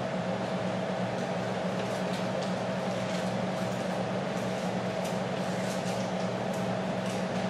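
Steady hum of a church sanctuary's ventilation and sound system, with faint scattered rustles of Bible pages being turned to Romans chapter 8.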